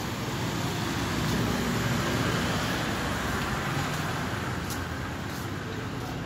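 Motor traffic on a narrow city street: a steady noise of passing vehicles' engines and tyres, swelling a little about a second and a half in.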